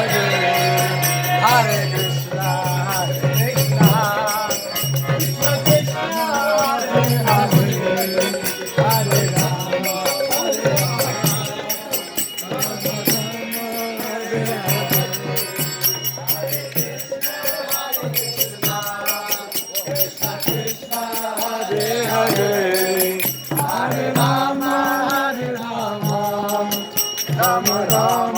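Devotional mantra chanting set to music: singing voices over a steady low drone, with a quick jingling percussion beat.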